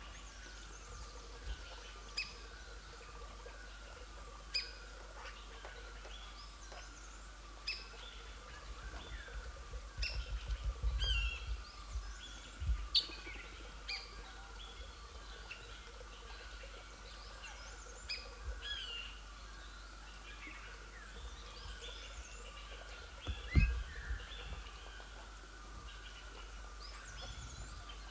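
Forest birds calling, among them a maroon oriole: short, sharp high calls every two to three seconds over a steady run of lower repeated notes. A few low thumps come through, the loudest about two-thirds of the way in.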